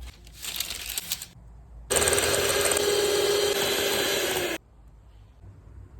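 Electric mixer running for about two and a half seconds with a steady motor hum, starting and stopping abruptly. Before it, about a second of light clicking and clattering.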